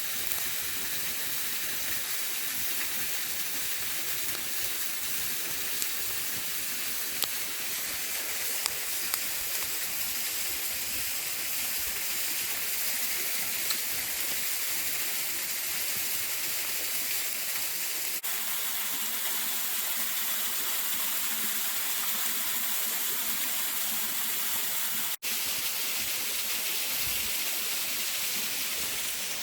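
Waterfall rushing steadily, an even, hissing roar of falling water, with a few light clicks in the first half.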